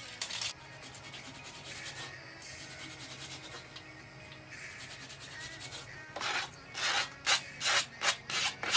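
Gloved hands and a plastic cutting board scraping diced onion and celery into a bowl. After a quieter stretch, about eight short, loud scrapes come in quick succession over the last three seconds.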